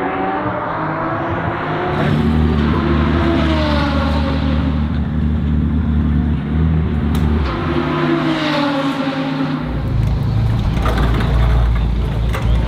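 BMW M4 GT3 race car engines going by twice, each pass with a falling pitch. A deep steady rumble takes over near the end.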